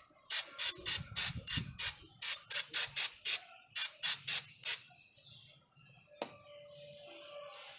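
Aerosol brake cleaner sprayed in quick short bursts, about four a second in three runs, onto disc brake pads held in a removed brake caliper to clean them. A single sharp click about six seconds in.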